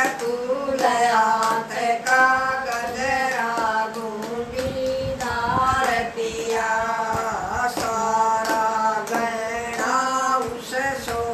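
Women singing a Haryanvi folk bhajan with long held, bending notes, accompanied only by their hand claps keeping time.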